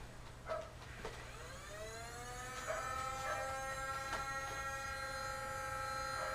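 A motorised flywheel Nerf blaster spinning up: its whine rises in pitch over about a second and a half, then holds steady, with a few sharp clicks over it.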